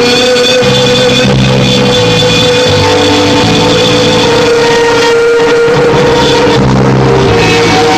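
Instrumental rock music: a guitar holds one long note while a bass line moves underneath.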